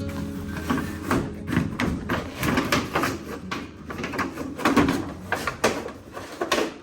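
Irregular knocking, clattering and scraping, as of things being handled and set down by hand.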